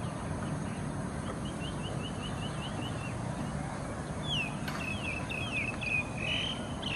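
Birds singing: a quick run of about eight short high chirps, then a louder phrase of clear down-slurred whistles in the last few seconds, over a steady low background rumble.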